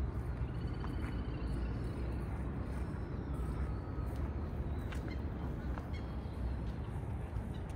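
Outdoor ambience: a steady low rumble, with a short wavering bird call about a second in and a few faint clicks.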